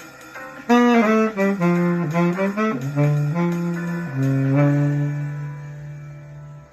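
Solo wind instrument playing a melody: a run of quick notes starting about a second in, then a long low note held from about four seconds that fades away near the end.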